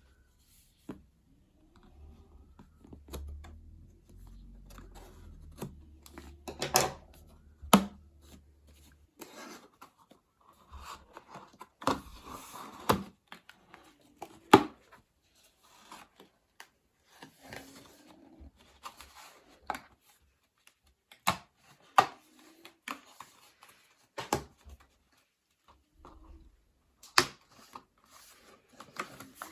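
Hands handling cardboard boxes and packaging: scattered taps and knocks, with short stretches of rustling and tearing.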